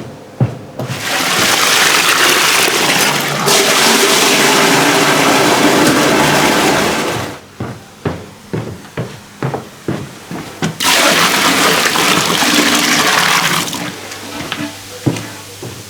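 Water running in two long gushes, the first about six seconds and the second about three, with light knocks and clatter between and after them.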